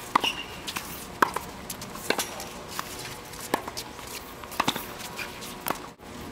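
Tennis ball being struck with rackets in a rally: sharp hits about once a second, each with a short ring.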